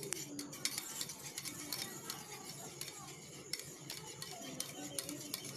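A wire whisk beating a raw egg in a small stainless steel bowl: quick, uneven, quiet clicking of the wires against the metal.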